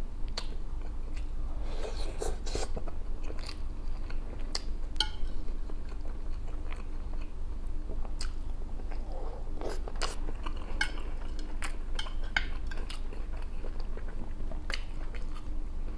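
Close-up eating sounds: a man chewing and biting into bran bread and a forkful of rice and vegetables, with a metal fork clinking and scraping on the plate in irregular sharp clicks.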